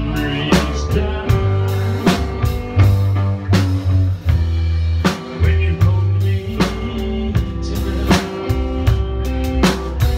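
Live band playing an instrumental passage: drum kit struck in a steady beat, with guitar and sustained low bass notes underneath.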